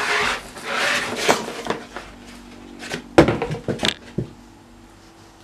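Cardboard packaging being handled: the scrape and rustle of a cardboard box insert being pulled about, then a few sharp knocks about three seconds in.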